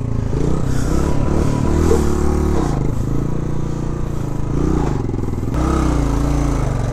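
Motorcycle engine revving up and down several times, the bike stuck with its tyre sunk into soft ground and not pulling.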